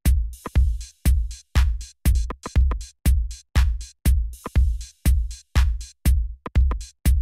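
Background music: an electronic drum-machine beat, with a heavy kick about twice a second and lighter snare and hi-hat hits in between.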